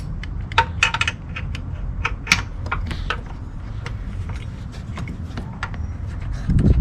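Irregular light metallic clinks and clicks as a car battery's hold-down bracket and its hardware are fitted by hand, with a duller knock near the end.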